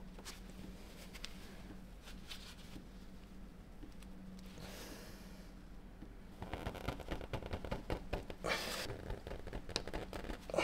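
Quiet handling noise of bare hands gripping and trying to twist a motorcycle's spin-on oil filter: scattered scrapes, clicks and rustling that grow busier from about six seconds in. The filter stays stuck. A faint steady low hum lies underneath.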